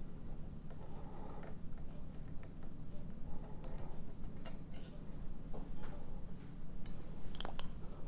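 Irregular small metallic clicks and ticks from an ABUS D6 dimple lock being handled as its core is worked out for gutting, over a low steady hum.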